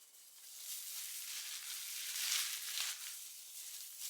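Plastic seafood-boil bag crinkling and rustling as it is handled, in uneven surges that are loudest around the middle.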